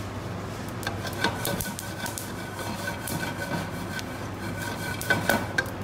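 A wooden spatula stirring and scraping nuts and seeds as they dry-roast in a nonstick frying pan, with scattered clicks and knocks, the loudest few just before the end.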